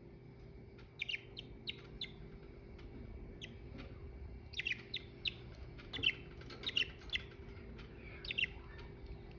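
Budgerigars chirping: short, sharp chirps in loose clusters, a few at a time with brief pauses between.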